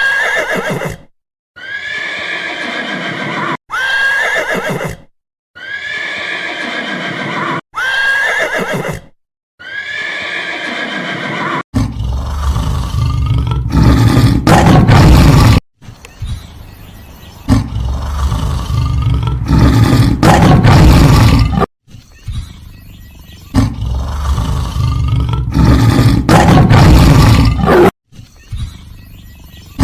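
Animal calls cut together in short clips: a high, wavering whinny-like call that falls in pitch, repeated about five times, then from about twelve seconds in several loud, deep roars.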